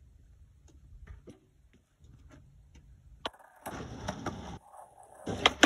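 Skateboard being ridden: a sharp click about three seconds in as it sets off, then the rushing noise of its wheels rolling on concrete, with loud clacks near the end.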